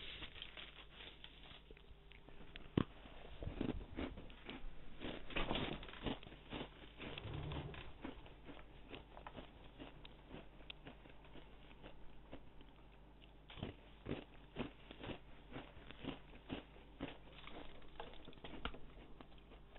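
Faint, irregular clicks and crunches of someone eating and chewing close to a microphone, over a low steady hum.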